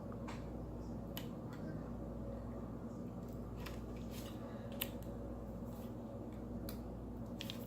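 Scattered light clicks and taps of fingers handling the small plastic and glass parts of a smartwatch, about ten in all, over a steady low hum.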